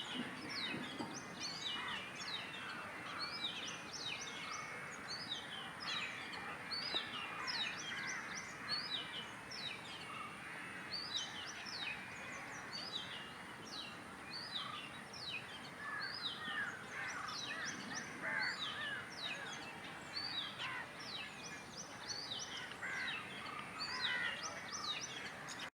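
Several birds calling together: many short, high notes that drop in pitch, several a second, over softer lower warbling.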